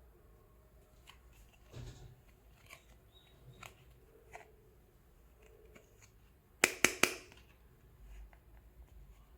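Small plastic toy pieces being handled: scattered light clicks and a soft rustle, then three sharp clicks in quick succession about seven seconds in.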